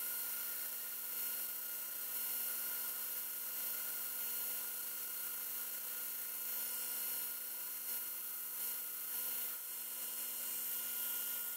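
Belt grinder running, its abrasive belt sanding a hickory hatchet-handle blank down to the template line: a steady hiss over a motor hum.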